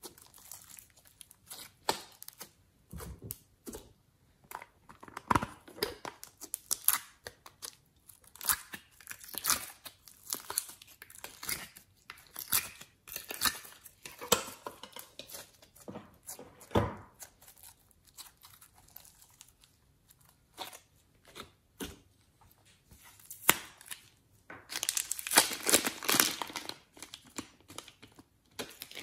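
Hands squeezing and folding glossy slime, giving irregular sticky crackles and pops. A dense run of crackling comes near the end.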